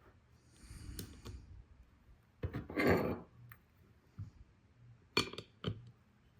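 Small metal parts of a disassembled Cobratec OTF automatic knife being handled and worked: a short scraping rustle about two and a half seconds in, then a few sharp metallic clicks near the end.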